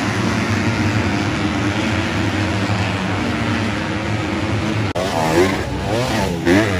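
Several motocross bikes' engines running hard in a dense, steady mix. About five seconds in the sound breaks briefly, and then bike engines rise and fall in pitch as riders rev on and off the throttle.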